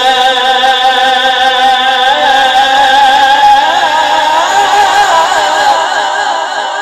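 A man reciting the Quran in melodic tajweed style, holding long notes ornamented with quick wavering turns of pitch. The line becomes more ornate a few seconds in and settles lower near the end.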